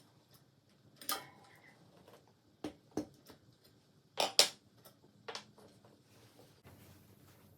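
Metal tools and bicycle parts being handled: a handful of sharp, separate clinks and knocks, one with a brief ring about a second in and a loud close pair about four seconds in.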